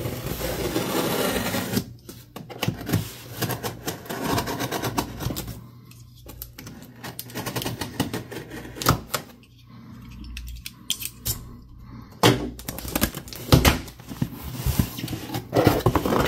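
A folding utility knife slicing along the packing tape of a cardboard box, then a run of irregular clicks, taps and scrapes as the tape is worked loose and the cardboard flaps are folded open.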